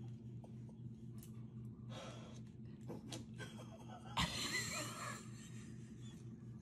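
A person's quiet, breathy exhalations, with a louder burst of breath about four seconds in, over a steady low hum.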